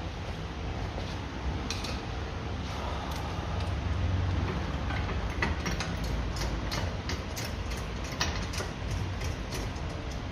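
Hand ratchet clicking in short strokes as the brake caliper bolts on a car's front hub are run in, over a steady low hum.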